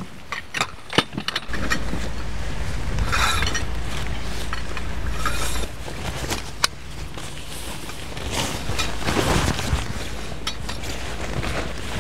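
Wind gusting on the microphone, a heavy low rumble that cuts off suddenly about halfway through, with sharp clicks and clinks of camping gear being handled at the start and a few short bursts of hissing noise.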